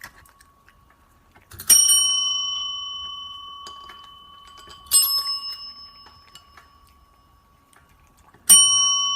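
A small metal bell struck three times, about three seconds apart, each clear ring fading away slowly.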